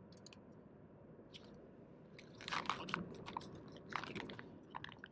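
Crinkling and rustling of a freeze-dried meal pouch being handled after hot water is poured in, the contents stirred and the pouch's zip seal closed. A few faint clicks at first, then bursts of sharp crackling from about two seconds in.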